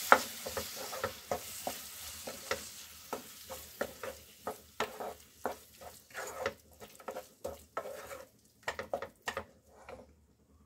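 A spatula stirring and scraping chopped tomatoes and spice masala in a nonstick kadai, with frequent short scrapes and knocks over a sizzle that thins out as it goes; the stirring stops shortly before the end. The tomatoes are being fried down with the masala (bhuna stage).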